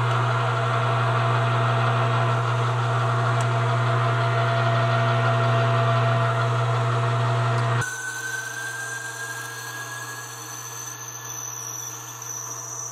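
Metal lathe running with a steady motor hum as a bit fed from the tailstock bores into a steel part spinning in the chuck, with cutting noise over the hum. About eight seconds in the sound drops abruptly to a quieter lathe running with a faint rising whine.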